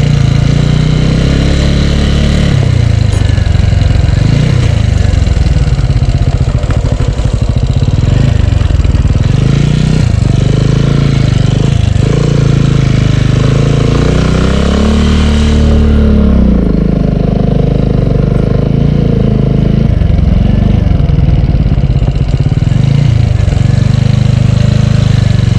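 Motorcycle engine running under the rider as the bike is ridden over a rough dirt track, its revs rising and falling with the throttle.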